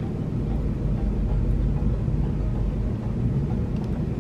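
Steady low vehicle hum heard from inside a car's cabin, the sound of the car running while parked.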